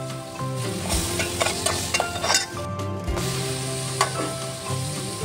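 Chopped onion and garlic sizzling in hot oil in an aluminium pot, stirred with a metal spoon that scrapes and clinks against the pot several times, loudest about four seconds in.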